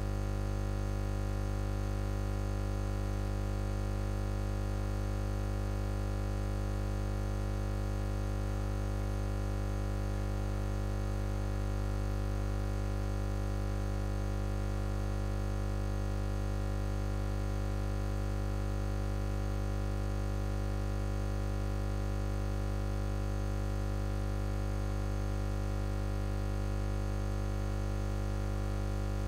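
A steady electrical hum and buzz with many overtones, unchanging in pitch and level throughout.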